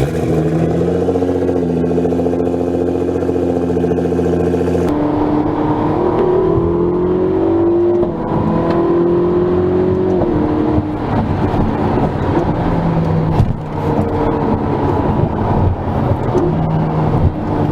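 High-performance car engines in separate clips: a steady engine note with a clear pitch for about five seconds, then, after an abrupt cut, revs that rise and fall in pitch, followed by rougher, uneven engine sound.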